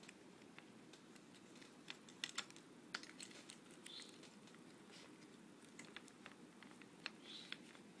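Faint scattered clicks and light rustling of hands handling a coiled power adapter cable, over quiet room noise; a few sharper clicks come about two to three seconds in.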